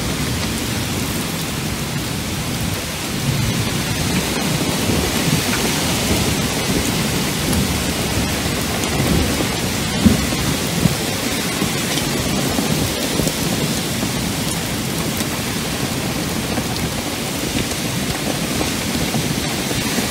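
Heavy wind-driven rain of a severe thunderstorm, a steady rushing noise with gusts churning in the low end. A single sharp knock sounds about halfway through.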